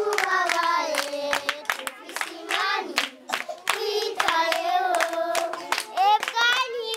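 Children singing together, with many hands clapping along.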